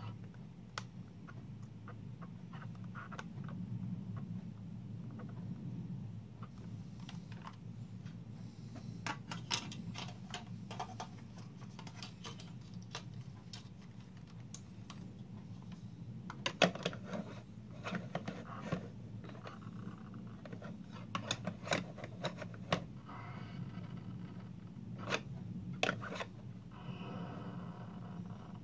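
Scattered clicks and knocks, in clusters and loudest about two thirds of the way through, from a plastic-and-metal DeLorean model being handled on and off its magnetic levitation base, over a steady low hum.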